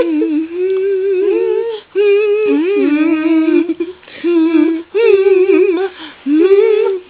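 A girl's voice singing wordless, wavering held notes in short phrases of a second or two, with brief breaks between them.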